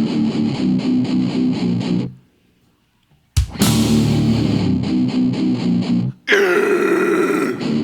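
Death metal with heavily distorted electric guitar playing a chugging riff. The band stops dead about two seconds in, and after roughly a second of silence comes back in on a sharp hit. Near the end the riff gives way to a high, held guitar note.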